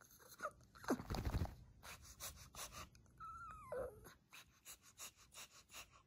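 A Shih Tzu whining and panting to beg for treats: short whines falling in pitch, a louder rough vocal sound about a second in, and a longer whine that slides down in pitch around the middle, with quick, even panting between.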